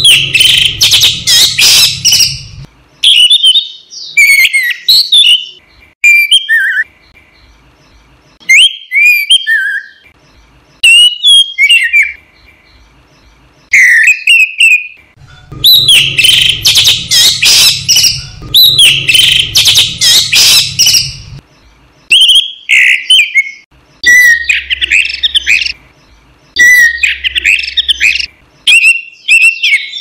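Orange-headed thrush (anis merah) singing loud, varied whistled phrases with short pauses between them. Longer bursts of rapid, dense chattering come at the start and around the middle.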